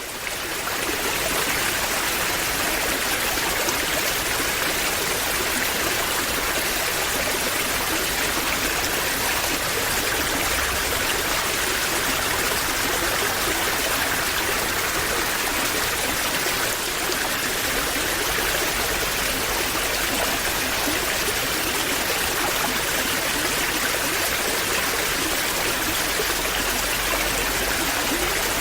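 Waterfall: a steady rush of falling water that fades in over about the first second, then holds even.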